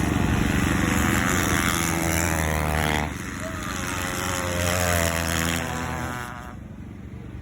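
Ice race car engines running at high revs, a buzzing sound that cuts off abruptly about three seconds in. Another engine then rises and fades away near the end.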